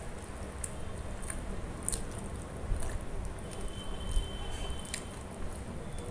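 Fingers squishing and mixing pea pulao rice on a stainless steel plate, with scattered small clicks and taps.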